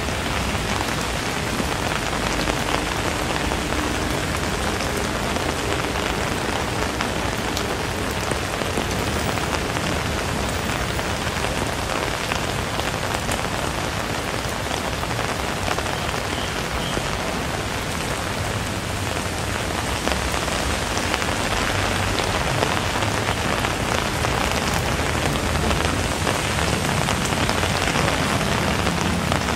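Steady rain falling, an even hiss dense with the patter of fine drops, a little louder in the last third.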